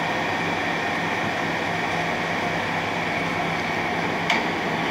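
1981 Clausing Colchester 8054 geared-head engine lathe running, a steady motor and gearbox hum, with one sharp click about four seconds in.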